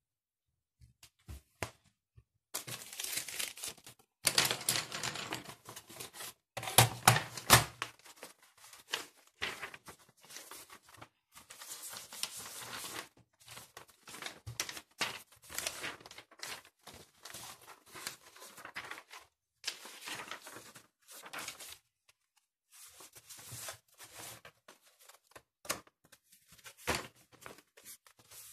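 Hand cleaning of a surface: irregular rubbing and rustling strokes, with small clicks and knocks as things are moved and set down. It is loudest a few seconds in.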